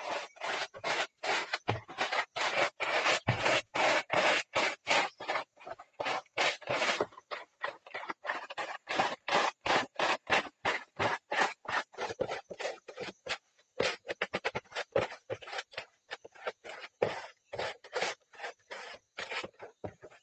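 Straightedge screed scraping back and forth across wet concrete in quick repeated strokes, about three a second, as the fresh floor is levelled.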